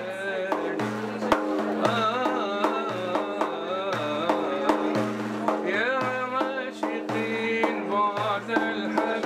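Middle Eastern-style music: a wavering melody over a steady drone, with a low drum beat about once a second.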